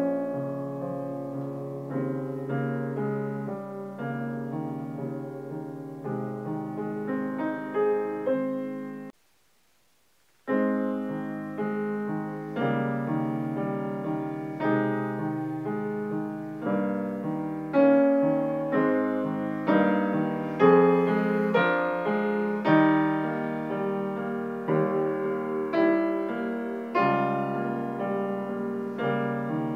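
Grand piano being played, a continuous stream of notes and chords. About nine seconds in it stops dead for about a second and a half of silence, then carries on.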